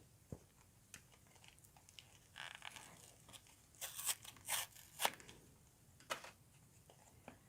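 Pokémon trading cards and their foil booster pack being handled: faint rustling with a few brief scrapes and flicks as the cards are slid and turned over, busiest in the middle.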